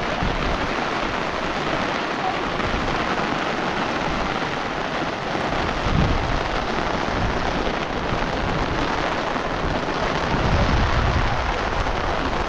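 Heavy rain pouring steadily, with low rumbles about six seconds in and again near the end.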